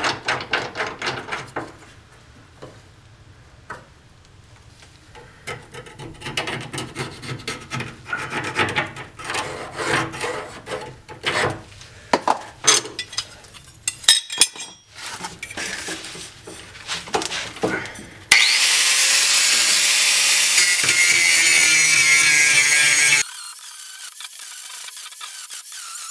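Metal handling under a car: irregular clinks, scrapes and rubbing as a steel subframe reinforcement plate and its bolts are fitted by hand. Then an angle grinder grinds the steel chassis around the subframe mount to clean metal for welding, loud for about five seconds, then quieter and steady near the end.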